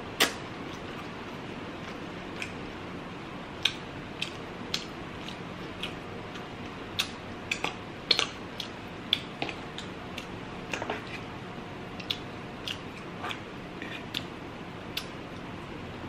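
A person chewing soft food close to the microphone, with irregular wet mouth clicks and lip smacks about two a second over a steady low hiss. The sharpest click comes right at the start.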